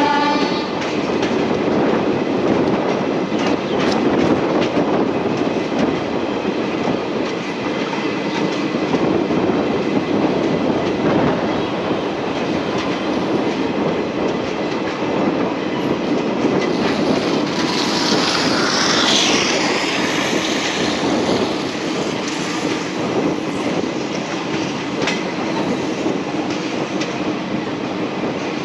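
Passenger express train coach running along a station platform: a steady rumble of wheels on the rails with clickety-clack from the rail joints. About two-thirds of the way through, a high, wavering wheel squeal lasts a few seconds.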